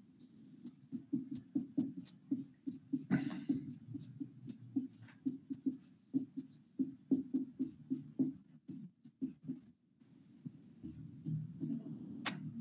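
Marker writing on a whiteboard: a quick run of short scratching strokes, a few of them longer. The sound cuts out in brief gaps a little past two-thirds through.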